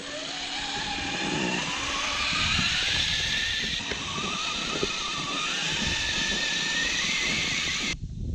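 Whine of small brushless electric motors, wavering and climbing in pitch over the first few seconds, over a steady hiss; it stops abruptly near the end.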